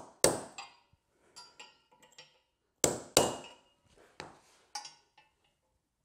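Hammer striking a punch held on the concrete floor through the holes of a steel tire-changer base, marking the anchor hole locations: two sharp metallic strikes near the start and two more about three seconds in, with fainter taps and clinks between.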